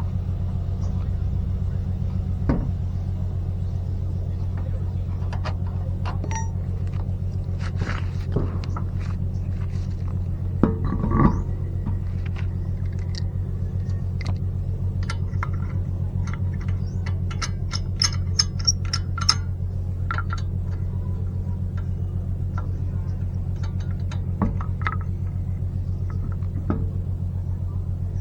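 Scattered metallic clicks and clinks, with small clusters about eleven seconds in and around eighteen to nineteen seconds, from brake parts and hand tools being handled, over a steady low hum.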